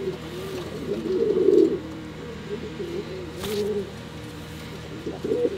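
Male pouter pigeon cooing, a string of low warbling coos, likely courting a hen held up to his cage. A brief rustle about three and a half seconds in.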